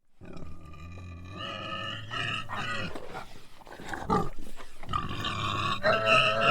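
An animal squealing: drawn-out, high-pitched squeals with a low rumble under the first part, growing louder and steadier about five seconds in.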